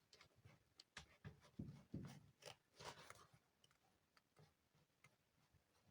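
Faint, irregular scraping and clicking as a screwdriver is pressed and rubbed along the edge of a freshly glued sneaker sole to bond it down.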